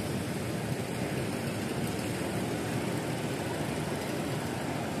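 Steady street ambience with a low rumble of road traffic.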